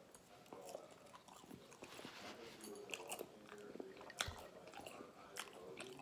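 A person chewing french fries with the mouth closed, faint, with small crunchy clicks scattered through and one sharper click about four seconds in.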